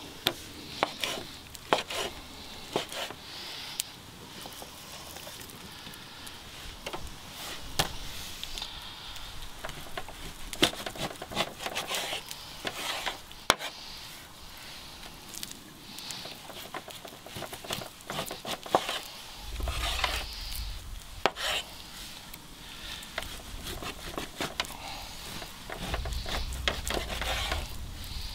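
Irregular knocking, tapping and scraping with many sharp clicks, the sounds of hands working with wood and cooking gear. A low rumble comes in twice, about two-thirds of the way through and again near the end.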